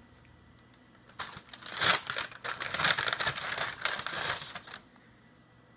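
Packaging crinkling and rustling as a gift item is unwrapped by hand, starting about a second in and lasting about three and a half seconds.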